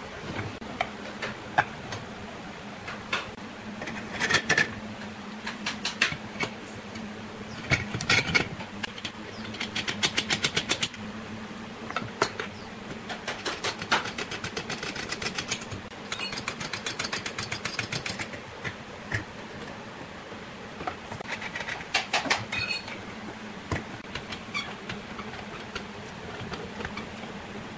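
Wood lathe running with a steady motor hum, broken by scattered knocks and bursts of rapid, even ticking.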